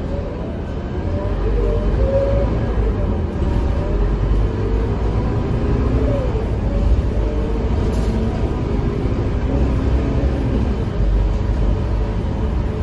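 Scania K230UB city bus's five-cylinder diesel engine and drivetrain heard from inside the cabin as the bus pulls away and drives on. A steady low drone builds about a second in, with whines that glide up and down in pitch as it accelerates and changes gear.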